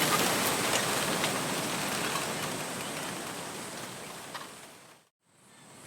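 Wind rustling through a bamboo grove: a dense hiss with scattered light clicks and knocks. It fades steadily to silence about five seconds in, then fades back in.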